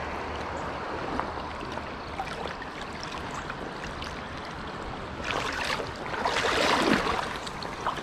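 Shallow creek water running steadily, then splashing and sloshing from about five seconds in, loudest near the end.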